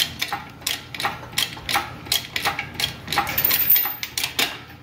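Rapid, regular mechanical clicking, about three or four clicks a second, from hand-pumped hydraulic lifting gear as an engine and transmission are raised.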